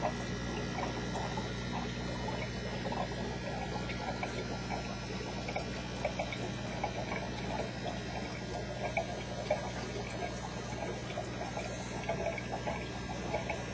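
Aquarium filter or pump running: water trickling and bubbling over a steady low hum.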